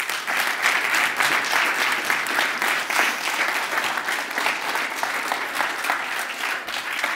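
Audience applauding: a full round of many people clapping that starts abruptly and holds steady.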